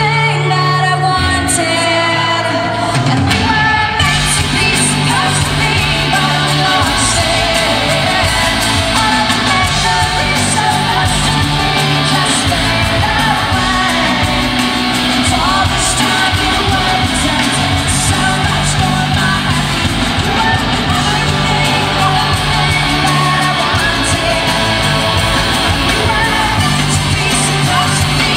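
A live rock band playing with a female lead singer: distorted electric guitars, bass and drums, heard loud from within the audience. The band gets fuller and brighter about four seconds in.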